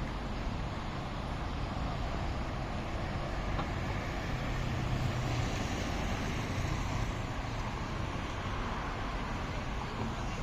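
Steady outdoor ambience of distant road traffic, a continuous rumble and hiss, with a low hum swelling a little midway.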